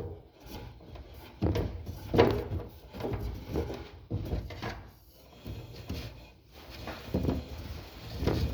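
A man grunting and straining on the toilet: a string of short strained grunts and heavy breaths, about one every second.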